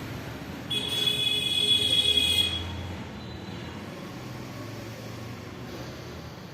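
A long, forceful breath through the nose lasting about two seconds, with a whistling tone, as in pranayama nostril breathing. A low, steady background follows.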